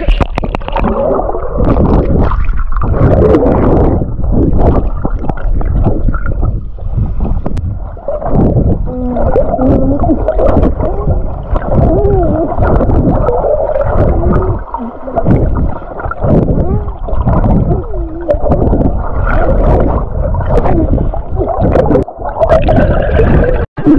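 Muffled river water gurgling and churning around the camera in a strong current, with muffled wavering tones running through it.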